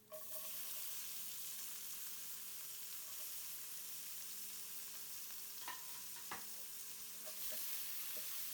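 Garlic and chopped onion sizzling in hot oil in a pan: a steady sizzle, with a few light clicks of a utensil against the pan about six seconds in.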